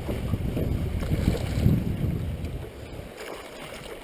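A hooked northern pike thrashing and splashing at the surface right beside the boat. The splashing is louder for the first three seconds or so, then eases off.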